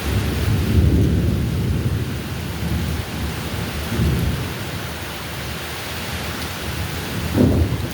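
Heavy rain falling steadily, with low rumbles of thunder that swell at the start, again about four seconds in, and near the end.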